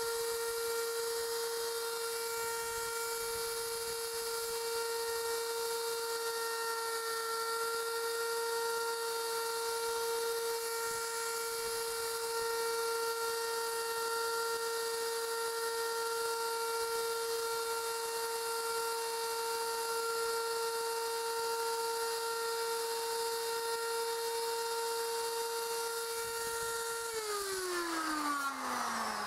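Handheld router motor running at a steady high speed, then switched off near the end, its whine falling in pitch as it spins down.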